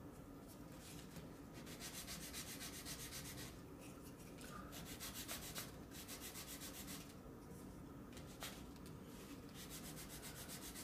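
A thin wooden plate rubbed back and forth on sandpaper, faint quick scraping strokes in three bouts. Its tip is being sanded to a slight point so it will press snugly into a slot in the base.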